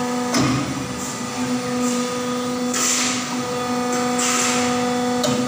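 120-ton hydraulic die casting machine running a cycle: the steady hum of its hydraulic pump, a sudden knock about a third of a second in, then two hissing surges as the die opens.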